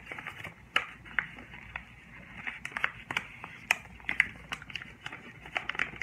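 Origami paper being bent and folded by hand, giving irregular crisp crackles and crinkles.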